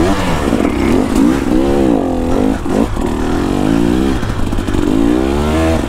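Two-stroke dirt bike engine being ridden under throttle, its pitch rising and falling about once a second as the revs go up and down.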